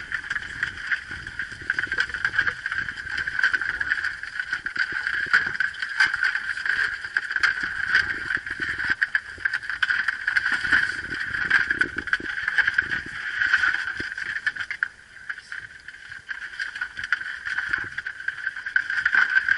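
Steady high whine of the crab boat's engine running, with irregular low knocks and rustling from crabs and gear being handled on the deck.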